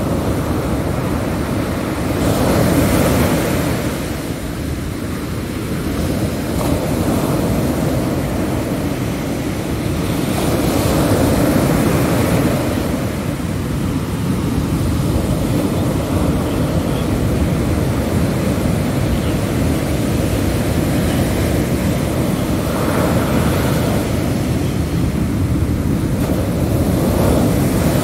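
Ocean surf breaking on a beach: a steady rumble, with the hiss of a wave washing in swelling several times. Wind buffets the microphone throughout.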